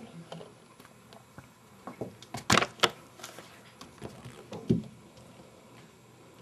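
A cat scuffling and pouncing on the floor: a quick cluster of sharp knocks about two and a half seconds in, then a single thump near five seconds.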